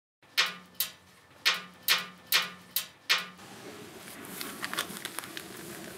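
A run of seven sharp, ringing taps or knocks at about half-second spacing, then steady room tone with a few faint light clicks.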